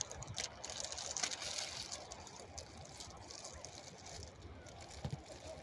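Soft outdoor ambience at a lakeshore: a faint hiss that eases after the first two seconds, with light wind rumbling on the microphone now and then.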